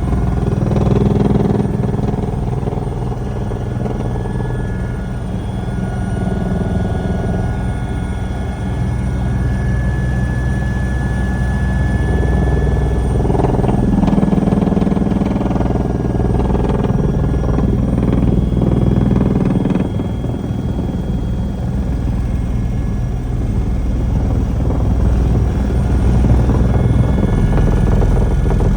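Helicopter running steadily: a continuous loud low drone from the rotor and engine, without a break.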